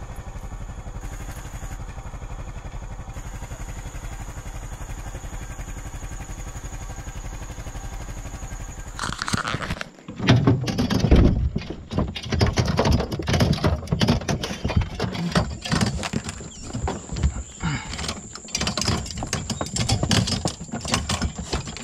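Pickup truck engine running steadily, heard from inside the cab. About nine seconds in, it gives way to louder, uneven rumbling, rattling and scraping, like a truck moving over a rough dirt track.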